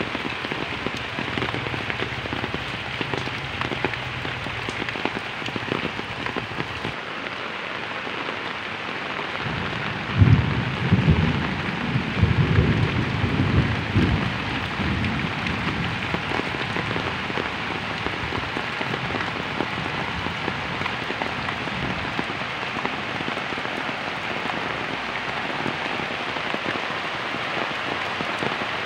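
Heavy rain falling steadily on wet, puddled ground, a dense even hiss. About a third of the way in, a low rumble swells for a few seconds, the loudest part, then the rain goes on alone.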